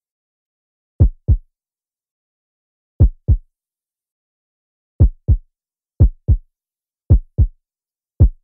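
Heartbeat sound effect: six double low thumps, lub-dub, with dead silence between them. The pairs come about two seconds apart at first, then about once a second from about five seconds in.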